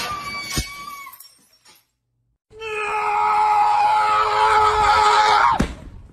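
A cat yowling: a rising, drawn-out cry that fades about a second in, then, after a short pause, a loud, steady yowl of about three seconds that cuts off abruptly.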